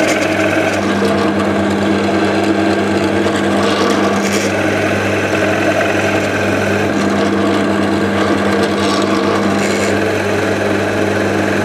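Pillar drill motor running with a steady hum as a 35 mm Famag Bormax Forstner bit bores down into soft alder, its cutting spitting out curled shavings. The brand-new bit is properly sharp and cuts fast with no pressure on it.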